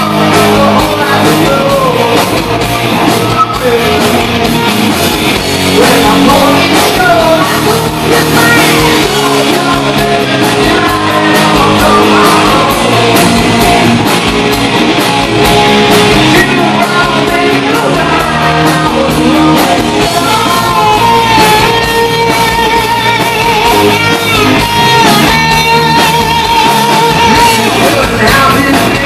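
Live hard rock band playing loud through a club PA: distorted electric guitars, bass guitar and drums with a male lead vocal. In the last third a lead guitar holds a note with a wide, fast vibrato.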